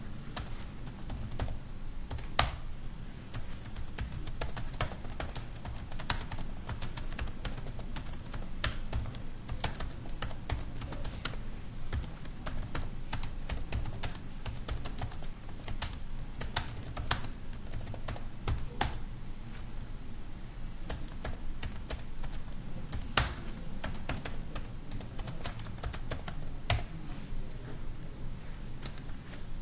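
Typing on a computer keyboard: a steady run of key clicks, with a few louder strokes standing out now and then, over a faint low hum.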